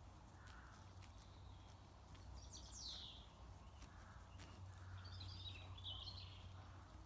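Quiet rural ambience with small birds calling: a downward-sliding call about three seconds in and a short twittering phrase around five to six seconds in, over a steady low hum and scattered faint clicks.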